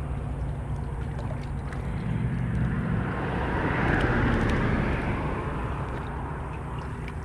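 A steady motor-like drone that grows louder about four seconds in and then fades, with a few faint ticks.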